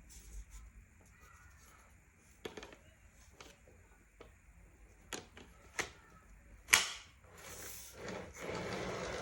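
Plastic parts of an Eta Fenix vacuum cleaner being handled and snapped together: a few sharp clicks, the loudest about seven seconds in, then a second or two of rustling and scraping near the end.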